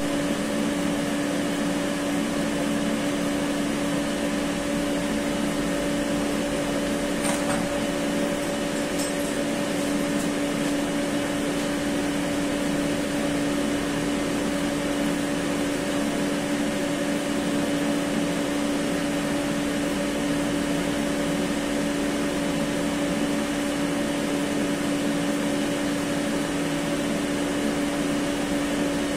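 Variable-frequency drives in an electrical cabinet running: a steady electrical hum with one strong low tone and a fainter higher one over an even hiss. A couple of faint clicks sound about seven and nine seconds in.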